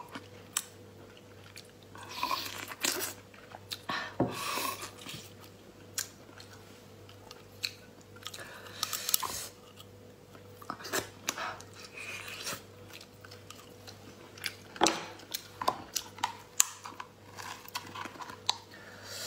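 Close-up eating sounds: wet chewing of lobster meat, and the crackle and snap of a cooked lobster's shell being pulled apart by hand, with sharp clicks scattered throughout.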